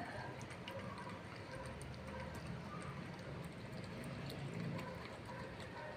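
A dog eating from a stainless steel bowl: faint chewing and licking with scattered small clicks.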